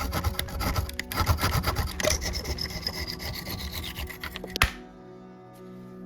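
Rapid rasping strokes of a file working a small workpiece, with a tone under them that falls in pitch; the strokes stop with a sharp click about four and a half seconds in.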